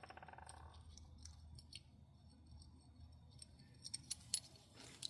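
Faint metallic clinks and a short rattle of small engine parts and a bolt being handled and fitted by hand, with a few sharper clicks about four seconds in.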